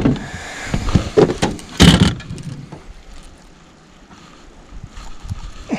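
A few sharp knocks and thumps in the first two seconds, the loudest about two seconds in, then quieter with a few faint ticks.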